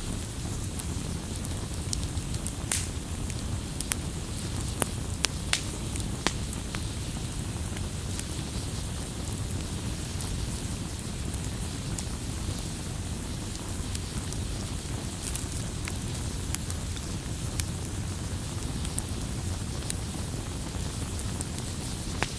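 Firewood burning: a steady low rumble of flame with irregular sharp crackles and pops, more frequent in the first few seconds.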